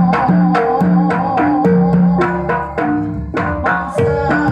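Javanese jaranan gamelan playing: a set of three small kettle gongs struck with padded sticks in a quick rhythm, their ringing notes stepping between a few pitches, over the strokes of a barrel drum (kendang).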